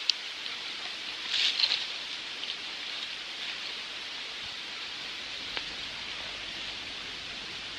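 Steady outdoor background hiss, with a brief brighter flurry about a second and a half in and a faint click near six seconds.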